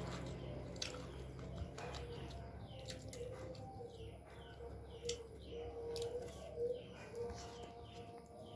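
A small bird chirping repeatedly in the background: short falling chirps, about two a second, starting about three seconds in. Scattered sharp clicks and a low wavering tone are heard alongside.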